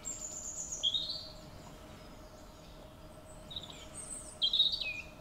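Songbirds singing short phrases of chirps and quick sliding notes, once at the start and again near the end, over a faint steady hum.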